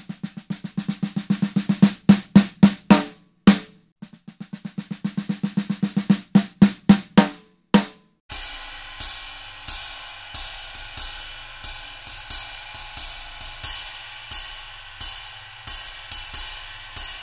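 Snare drum struck with drumsticks in two phrases that build from soft strokes to a few loud hits. From about eight seconds in, a ride cymbal played with a Vic Firth 5B hickory stick: steady ringing strokes, about two a second, with occasional accents.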